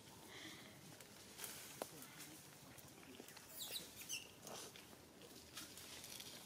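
Faint forest-floor ambience: light rustling and scattered clicks, with a few short, high chirps near the start and again around the middle.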